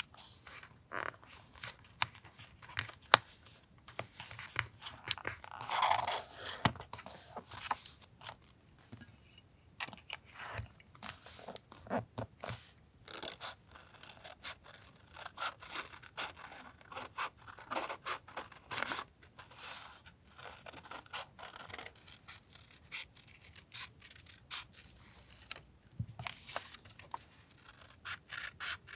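Paper and stationery being handled and cut for a collage journal: scissors snipping, paper rustling and scraping, in an irregular string of small clicks and rustles.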